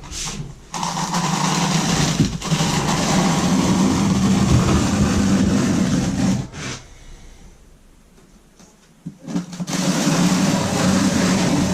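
Small electric power tool motor running at a steady speed, about six seconds at a stretch, stopping, then starting again for a short run near the end.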